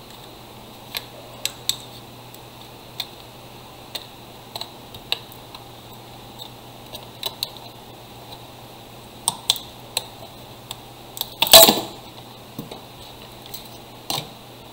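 Sharp plastic clicks and scrapes as a power bank's snap-together casing is pried open with a thin tool, with a louder crack and rustle about three quarters of the way in as the casing comes apart.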